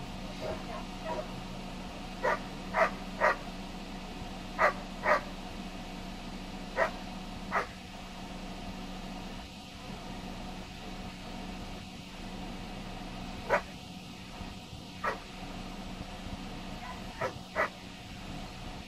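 Dog barking: about a dozen sharp single barks and quick pairs in irregular clusters, with a quieter stretch in the middle.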